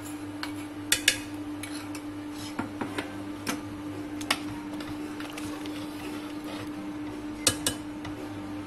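Steel ladle stirring sambar in a metal pressure cooker, clinking against the pot's rim and sides a handful of times, over a steady low hum.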